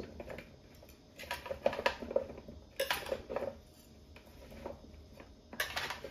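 Kitchen clatter: utensils and dishes knocking and clinking in three short flurries.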